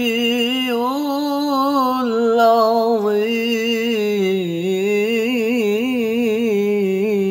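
A male voice chanting Quran recitation in tilawah style, drawing out one long, ornamented note: the held ending of 'Sadaqallahul 'azim' that closes the recitation.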